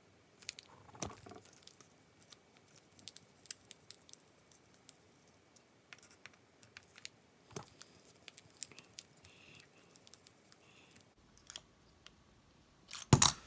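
Light, scattered clicks and ticks of a small hex key working the mounting screws of a pistol-mounted red dot sight, as the sight and its plate are taken off the slide, with one louder knock near the end.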